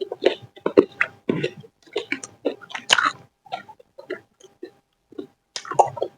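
Close-miked chewing and mouth sounds of someone eating, an irregular run of wet smacks and crunches, with two sharp clicks about one and three seconds in.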